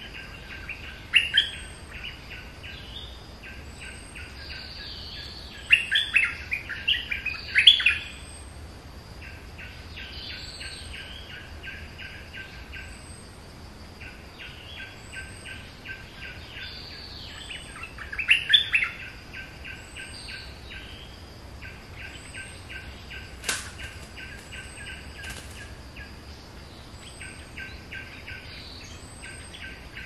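Stripe-throated bulbuls calling: quick runs of chattering notes, repeated every few seconds, with louder bursts about a second in, around six to eight seconds in and around eighteen seconds in.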